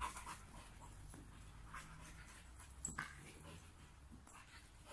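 Sprocker spaniel panting faintly in short breaths while it chases bubbles, with a single sharp click about three seconds in.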